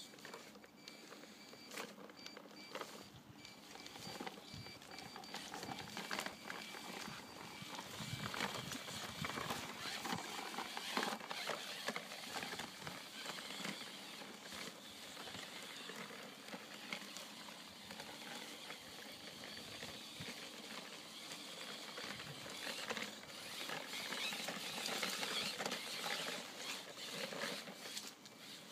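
Home-built 1:10 scale RC rock crawler driving through snow: a continuous crunching and crackling of its tyres in the snow, growing louder over the first several seconds.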